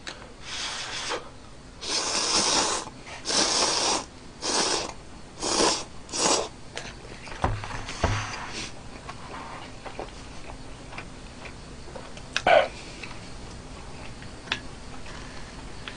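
Noodles being slurped from a bowl in a run of quick, loud sucks over the first six seconds or so, then quieter chewing with small clicks. Two dull knocks come about seven and a half to eight seconds in, as the bowl is set down on the wooden table.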